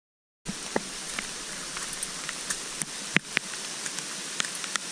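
Steady rain falling on foliage, with scattered sharp ticks of single drops striking close up; the sound starts abruptly about half a second in.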